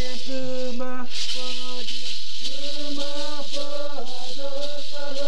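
Chanted singing in short held notes, about two a second, over a continuously shaken rattle.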